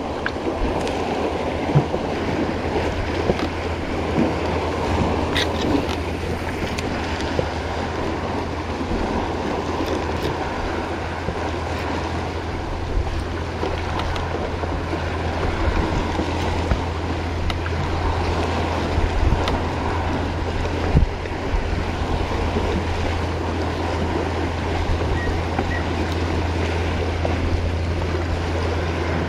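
Sea water lapping and splashing against a kayak's hull right at the microphone, with wind noise and a steady low hum beneath.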